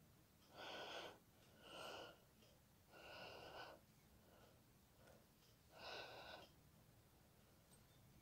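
A woman's faint breathing close to the microphone: four short puffs of breath a second or more apart, otherwise near silence.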